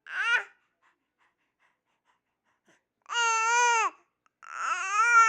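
Six-month-old baby vocalizing: a short sound at the start, a pause, then two long, high-pitched drawn-out vowel sounds, the second rising then falling in pitch and still going at the end.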